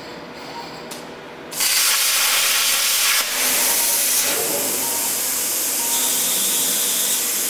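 Plasma torch of an early-model Plas-Mate CNC plasma cutter hissing loudly, starting about one and a half seconds in and holding steady, with a brief dip about three seconds in.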